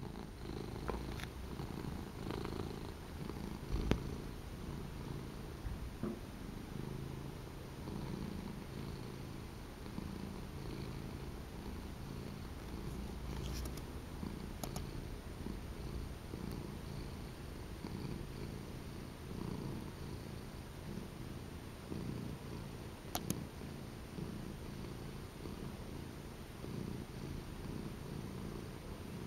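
Domestic cat purring steadily and closely, a continuous low rumble, with a few sharp clicks along the way.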